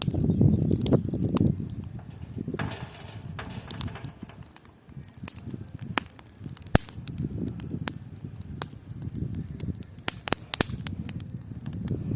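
Wood campfire crackling, with many sharp pops scattered through. Underneath runs a gusting low rumble of wind on the microphone, and a short hiss comes about three seconds in.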